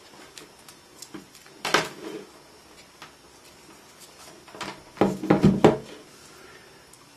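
A plastic mains power adapter brick and its cable being handled, knocking against a wooden surface. There is one knock about two seconds in and a quick cluster of knocks a little past the middle as the brick is set down.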